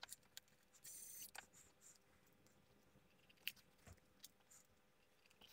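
Near silence, with a few faint clicks and a brief faint whir about a second in, from a cordless electric precision screwdriver driving a small screw into a metal instrument case.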